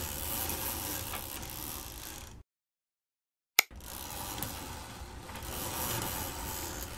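A steady mechanical noise in two stretches, broken by about a second of dead silence. The second stretch starts with a sharp click.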